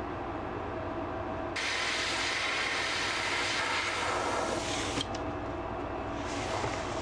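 Airbrush spraying paint onto a wooden crankbait: a steady hiss that starts suddenly about a second and a half in and cuts off about five seconds in, then a shorter, fainter burst near the end. A steady low hum lies underneath.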